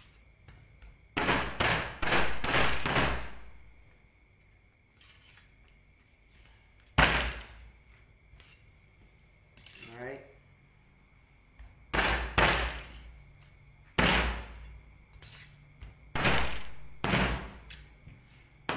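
Cleaver chopping a chicken into small pieces through the bone on a plastic cutting board padded with a cloth underneath: heavy chops in short runs, with pauses of a few seconds between them.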